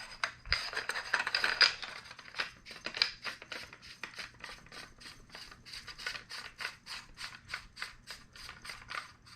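Muzzle brake being threaded by hand onto the Panzer BP12 shotgun's barrel: metal scraping for the first couple of seconds, then a steady run of short scratchy clicks, about four a second, as it is turned on.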